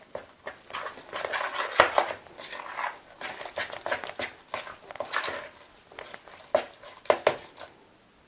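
A spoon stirring and scraping a minced pike and flour dough in a mixing bowl, with a rapid run of clicks and taps of the spoon against the bowl. A few sharper knocks come near the end, then the stirring stops.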